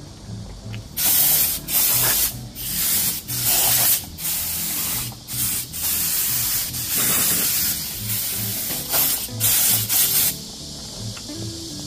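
Spray gun hissing in many separate bursts while cleaning a car's door opening and interior. Some bursts are short and some last about a second; they start about a second in and stop near the end. A faint steady beat of background music runs underneath.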